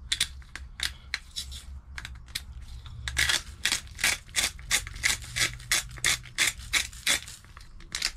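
Salt and pepper grinder twisted by hand over an open plastic bag, giving short crunching clicks, a few scattered at first, then a steady run of about three a second from about three seconds in.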